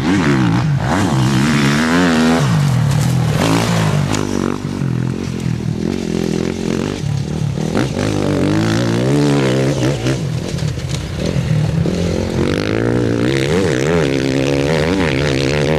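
Enduro motorcycle engines revving as bikes ride past close by, the pitch rising and falling repeatedly with the throttle.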